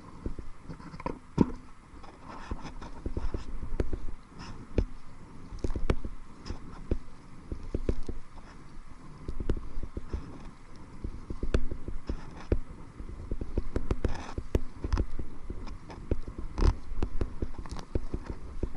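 Kayak paddling into a headwind: paddle strokes splash and knock irregularly every second or two, over a low rumble of wind on the microphone.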